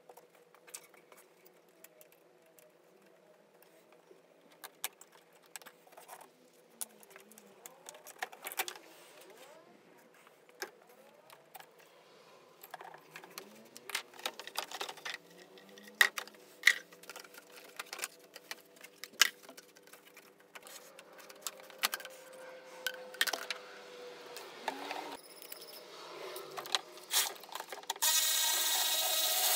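Scattered clicks, knocks and rattles of hoses, clips and parts being handled in a car's engine bay. Near the end a power tool runs for about a second and a half, the loudest sound here.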